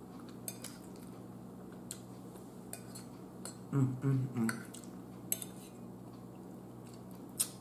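Metal fork clinking and scraping against a ceramic bowl of food, in scattered single clinks. A short hummed vocal sound comes about four seconds in.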